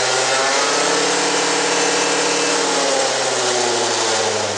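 Peugeot Speedfight 50cc liquid-cooled two-stroke scooter engine revved on the stand to test whether the variator gears up, holding high, steady revs and then easing off somewhat near the end.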